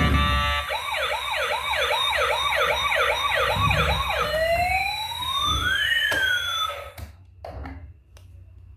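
Toy emergency vehicle's electronic siren: a fast two-tone warble sweeping up and down about twice a second, then two long tones gliding in opposite directions. It cuts off about seven seconds in, followed by a few faint clicks.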